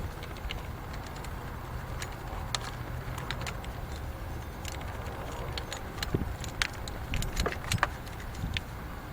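Scattered light metallic clicks and taps from hand tools being used on a motorcycle, bunching together about two thirds of the way in, over a low steady rumble.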